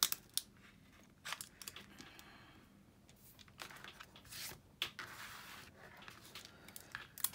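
Paper and cardstock rustling and crinkling as layered paper leaves on a handmade card are lifted and pressed down by hand. A few light clicks and taps are scattered through it.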